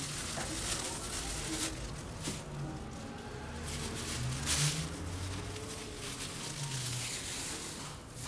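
Thin plastic produce bag rustling and crinkling as a bag of leafy greens is gathered and handled, in several short bursts, the loudest about four and a half seconds in.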